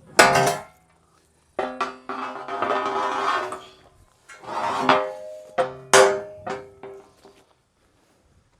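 A short piece of music with sharp percussive hits and ringing pitched notes, played in several phrases with abrupt dead-silent breaks between them.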